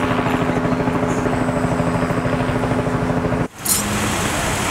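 A large engine running steadily with a fast, even throb. About three and a half seconds in it cuts off abruptly to a different, lighter engine and traffic noise.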